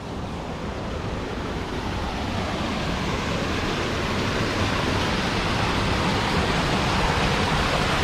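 Stream water rushing down a narrow rock chute at the head of a waterfall: a steady rush that grows gradually louder.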